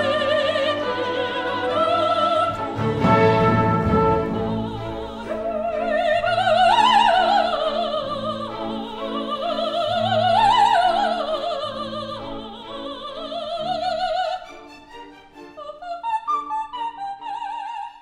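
Opera music: a soprano singing with a wide vibrato over an orchestra, climbing to a high note twice. About fourteen seconds in, the voice and the held orchestral sound drop away, leaving quieter, shorter instrumental notes.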